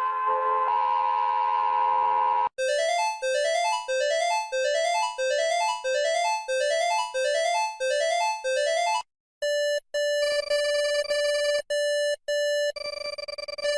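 Synthesized emergency-alert tones: a steady held chord of tones, then a fast stepped arpeggio pattern repeating about twice a second for around six seconds, then, after a short break, steady tones that drop out briefly a few times.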